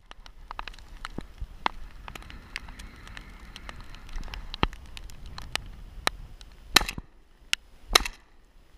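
Two shotgun shots about a second apart near the end, over a scatter of sharp clicks and knocks.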